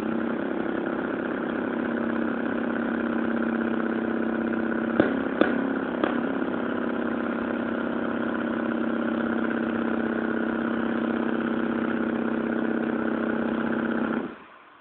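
Homelite ST-155 25cc two-stroke weed-eater engine, converted to diesel compression ignition, being run with a hand-held tool pressed to it as outside help. The running is steady, starts and stops abruptly, and has a few sharp clicks about five to six seconds in.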